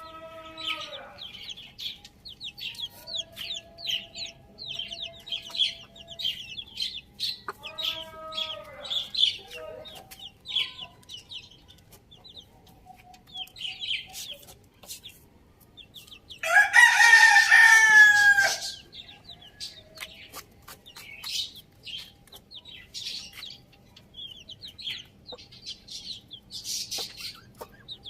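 Domestic chickens: short clucking calls, and a rooster crowing once for about two seconds past the middle, the loudest sound. High, quick chirps from small birds run throughout.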